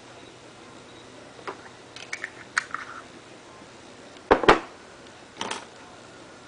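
Several short clicks, then a loud double knock about four seconds in and a softer knock a second later: small hard objects being handled and set down on a hard surface.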